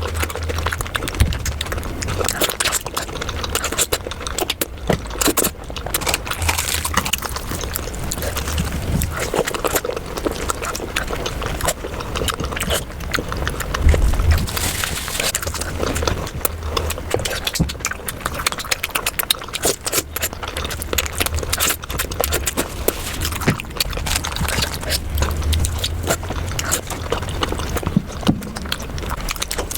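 Close-miked eating sounds of chicken curry, played at double speed: a quick, continuous run of wet chewing clicks and lip smacks over a steady low hum.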